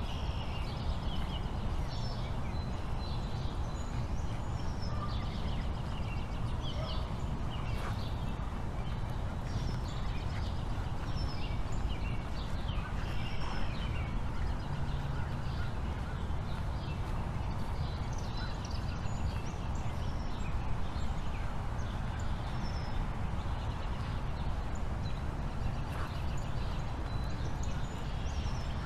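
Outdoor ambience: many short, scattered high chirps, most likely small birds, over a steady low rumble.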